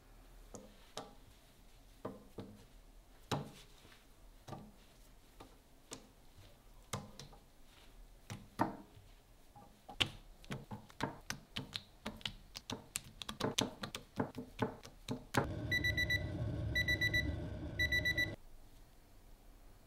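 Light clicks and taps of thin raw potato slices being picked up and dropped into a wire frying basket, coming faster for a while. Then, for about three seconds near the end, a digital probe thermometer beeps in three quick bursts over a steady rumble, its alarm signalling that the frying oil has reached the set 178 °C.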